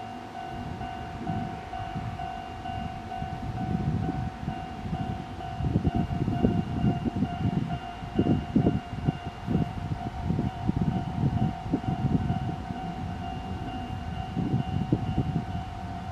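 Japanese level-crossing electronic warning bell ringing steadily in a fast repeated ding, with an uneven low rumble underneath.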